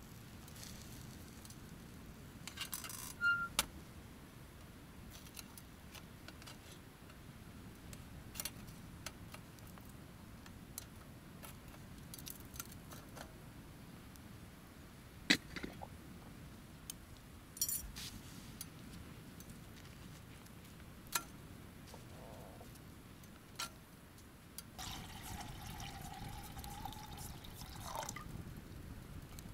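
Faint, scattered clinks and knocks of camp cookware and utensils, with about three seconds of liquid being poured near the end.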